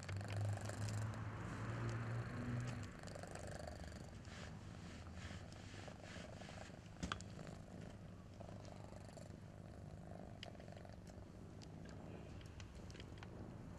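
A cat purring, low and steady, loudest for the first two or three seconds and then fainter. Soft rustles and light clicks come from the animals shifting in the crate, with one sharp click about seven seconds in.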